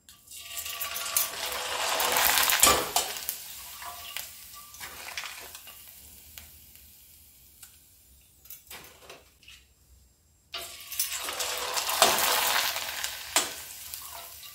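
Rice papads sizzling in hot oil: the sizzle starts as a papad drops in, swells for about two seconds as it puffs up, then dies away; a second papad goes in about ten seconds in and sizzles the same way. A few light clicks against the pan in between.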